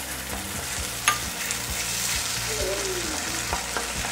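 Thick soy-ketchup sauce, just thickened with cornflour, sizzling in a nonstick pan on a high flame while a wooden spatula stirs and scrapes through it. There are scattered light clicks and one sharp knock of the spatula about a second in.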